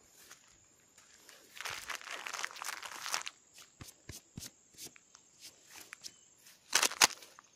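Footsteps on a grassy dirt forest trail, with rustling of grass and dry leaves. A longer rustle comes about two seconds in, then a run of short crunchy steps, and a louder crunch near the end.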